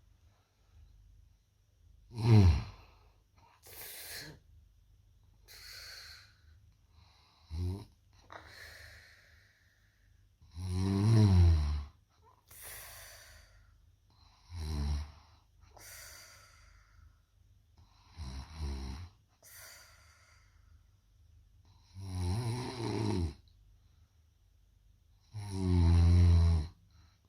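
A person snoring in sleep: seven loud, rattling snores about every three to four seconds, each with a softer, airy breath between them.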